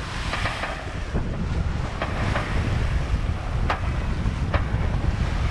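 Wind buffeting the microphone aboard a sailing yacht under way, over the rush of the sea, with a few short sharp clicks.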